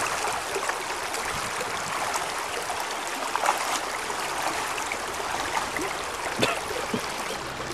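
Shallow creek water running over rocks, with a few splashing steps as someone wades through it.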